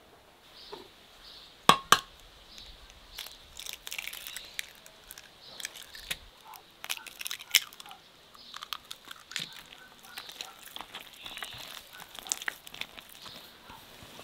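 A hand mixing and kneading flour, eggs and oil into bread dough in an enamel bowl: crumbly, crackling squishes and scrapes that come and go. There are two sharp clicks about two seconds in.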